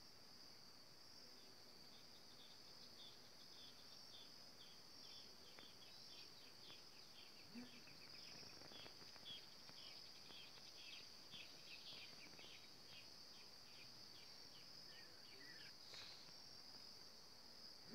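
Faint, steady high-pitched insect trill, with a run of short quick chirps, about three a second, layered over it for most of the stretch, and a few faint knocks.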